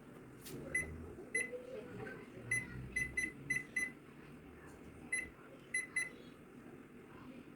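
Short high beeps from a Panasonic Cubie oven's control panel, about ten of them at uneven spacing, as its buttons are pressed to set a cooking programme, over a faint low hum.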